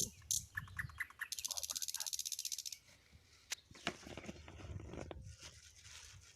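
An animal call: a rapid, evenly pulsing high trill lasting about a second and a half, followed by a few sharp clicks over a low rumble.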